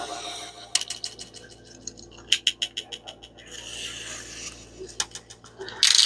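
Snap-off craft knife blade slicing through paper along a ruler edge, heard as clusters of short scratchy clicks and a drawn-out rasp. Near the end a louder scraping rustle as the cut paper strip is pulled free.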